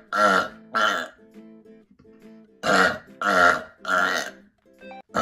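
A person burping loudly five times in quick succession: two short burps in the first second, then three more close together, each lasting under half a second. Soft guitar music plays underneath.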